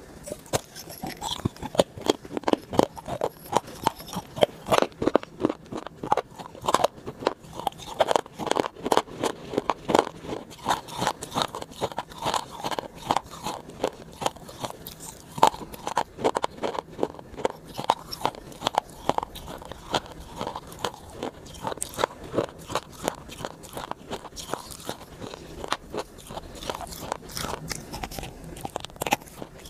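Crunchy biting and chewing, close to a clip-on lapel microphone: a quick run of sharp, crisp crunches, several a second.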